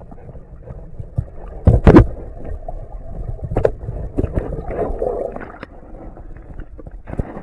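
Muffled underwater water noise picked up by a submerged camera: a low rumbling with several dull knocks, the loudest pair about two seconds in. Near the end the camera breaks the surface with a splash of water and bubbles.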